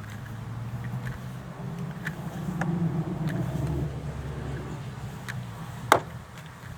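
Low vehicle engine hum that swells and then eases off, with scattered light clicks and one sharp click about six seconds in as seat belt hardware is handled.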